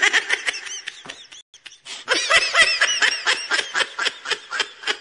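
High-pitched laughter: a rapid run of short 'ha-ha' syllables that breaks off briefly about a second and a half in, then a second, louder run of laughter.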